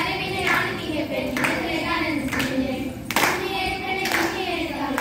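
A group of girls singing together and clapping in unison about once a second, the claps keeping time for a clapping circle dance.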